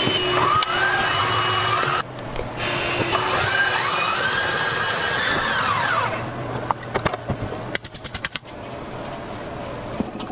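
Electric stand mixer running with its wire whisk beating a foam in a steel bowl: a steady whirring with a motor whine that rises as the speed goes up and falls again as it slows. About six seconds in, the sound turns quieter, with rapid irregular clicking.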